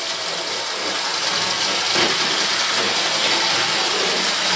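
OO gauge model locomotive running around the track: a steady whirr of its small electric motor and wheels on the rails.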